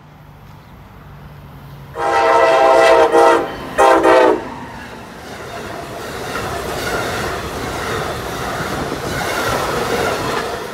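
Amtrak passenger train sounding its horn, a long chord blast about two seconds in, then a short one. The train then passes close by, its Amfleet coaches rumbling and clacking over the rails, growing louder toward the end.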